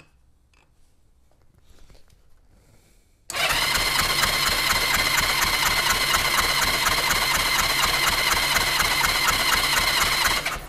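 A 1982 Honda Gold Wing's flat-four engine is cranked over on its electric starter, without firing, for about seven seconds with a compression gauge in one spark plug hole. It makes an even, rhythmic chugging with a steady starter whine, starting suddenly about three seconds in and cutting off abruptly. The gauge is pumped up to about 90–95 psi.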